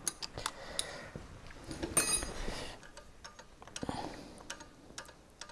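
Light metal clicks and clinks from a wrench working the jam nut loose on a sterndrive's shift cable, with a brief metallic ring about two seconds in.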